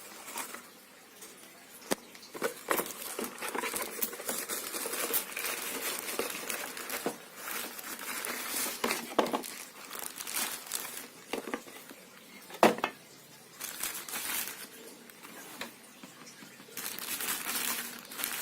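Packaging crinkling and rustling as a pair of motorcycle goggles is unwrapped, with scattered clicks and one sharp knock about two-thirds of the way through.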